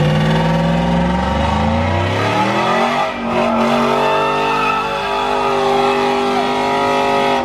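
Pickup truck doing a burnout: its engine revs climb over the first few seconds, then hold high and steady while the rear tyres spin and smoke on the pavement.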